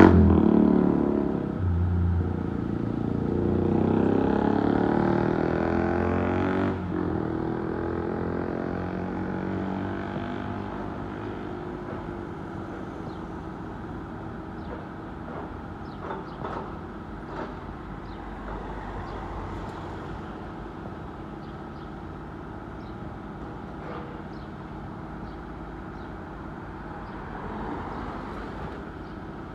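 An engine running, loudest at first and fading over about ten seconds to a steady lower hum, with a few light knocks scattered later on.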